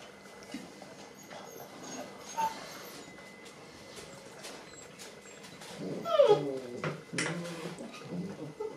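Puppy whimpering: faint at first, then about six seconds in a loud whine that slides down in pitch, followed by several shorter whimpers.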